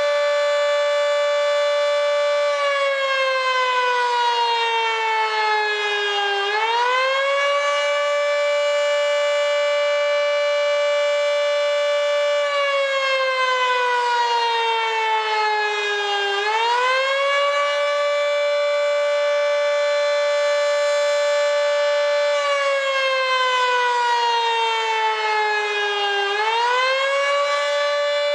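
Federal Signal 2T22 dual-tone electromechanical warning siren, its top intake blocked, sounding the Attack wail: the pitch holds steady for several seconds, sinks slowly for about four seconds as the motor is cut, then sweeps quickly back up, three times over.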